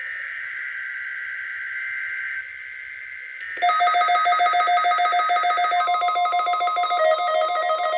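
Emergency Alert System tone signals from a NOAA Weather Radio test: a rough, buzzy data-tone signal for about three and a half seconds. Then a weather alert receiver's alarm suddenly goes off with a loud, rapidly pulsing ring, triggered by the test tones, and a steady lower tone joins near six seconds.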